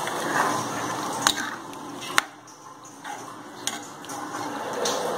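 A perforated metal ladle stirs a thin chicken curry in a pan, the liquid sloshing. The ladle knocks against the pan a few times, the sharpest clink about two seconds in.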